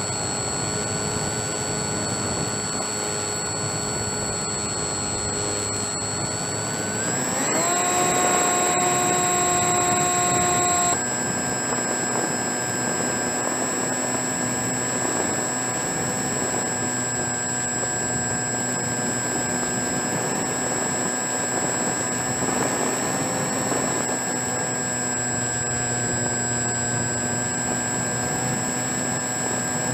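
RC model airplane's motor and propeller whining steadily in flight, recorded by the camera on board. About seven seconds in the pitch rises and it gets louder as the throttle opens, then a few seconds later it drops suddenly to a new steady pitch.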